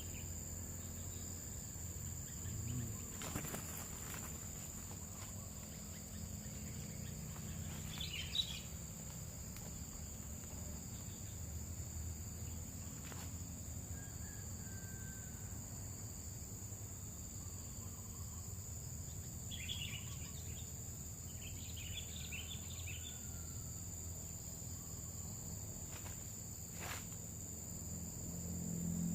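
Insects droning steadily in a high, even tone over a low background rumble. A few short, faint chirps come through about a quarter of the way in and again in a cluster about two-thirds through.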